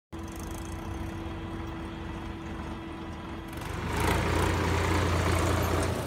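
Diesel tractor engine running steadily, growing louder and rougher about four seconds in.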